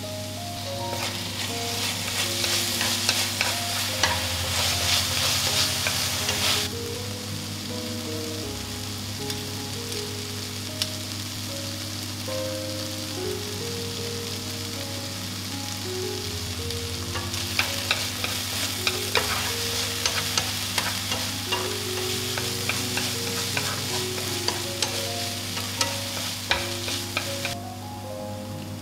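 Julienned radish sizzling in oil in a frying pan as it is stir-fried, with small clicks and scrapes of the utensil against the pan. The sizzling is loudest for several seconds at the start, drops back, and returns strongly in the second half before stopping shortly before the end.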